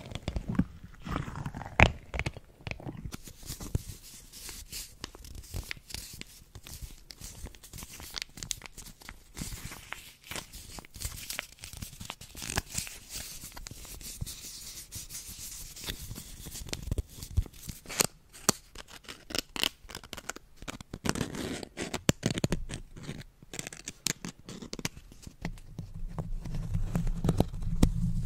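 A puffer ball squeezed close to the microphone for the first few seconds, then small foil screen-wipe sachets crinkled and scratched by fingertips: a dense fine crackle with occasional sharper clicks.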